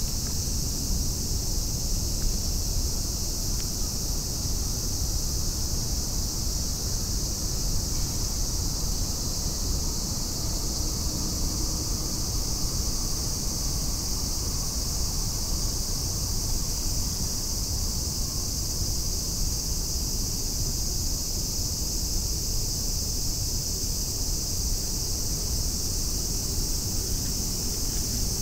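Steady, high-pitched drone of insects, unbroken throughout, over a constant low rumble.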